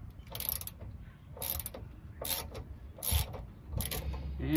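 Hand socket ratchet clicking in short bursts as it is stroked back and forth to loosen the rear sway bar link bolt, about five bursts at a steady pace.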